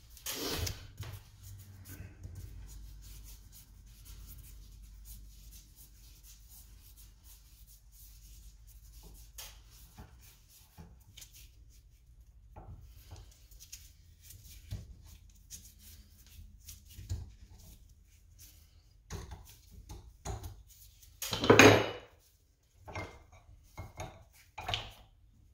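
Light metal clicks and scrapes as the threaded top cap of a Fox shock is spun off the shock body by hand, with one much louder metal clack about three-quarters of the way through.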